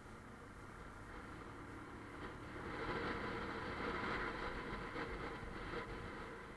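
Bajaj Pulsar 150's single-cylinder engine running under way with road noise, swelling louder for a few seconds in the middle before easing off.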